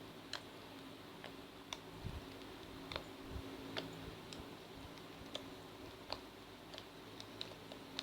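Finished homemade slime being squeezed and stretched by hand, giving faint, small, irregular clicks and pops, a few a second.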